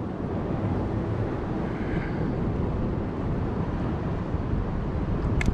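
Wind buffeting the microphone in a steady low rumble, with a short sharp click near the end.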